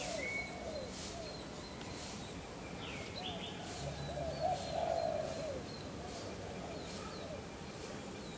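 Birds calling: short arched coos repeated in quick series, a little louder about four and a half seconds in, over faint high chirps about once a second.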